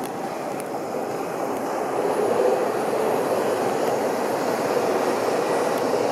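Distant jet airliner, an Air Do flight at about 8,000 ft, passing overhead: a steady rumble that grows louder over the first couple of seconds and then holds.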